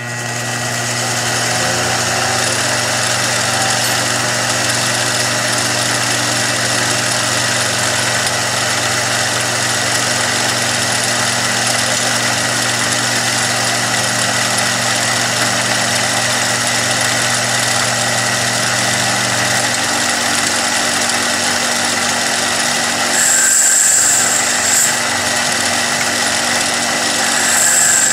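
Billiard cue lathe motor starting up and running steadily with a hum, spinning the cue shaft. About 23 seconds in and again near the end, the tip-shaper blade bites into the layered cue tip, adding short, louder high scraping bursts as it shaves the tip.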